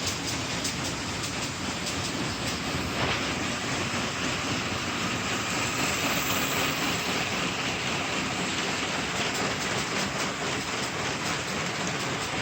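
Train running along the track: a steady rushing noise dotted with many short rail clicks.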